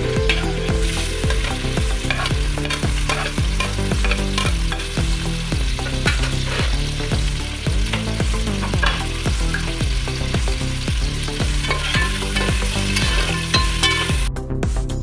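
Sliced onions frying in hot oil in a metal pot, sizzling and crackling, with a spoon stirring them around. Background music with a steady bass line runs underneath.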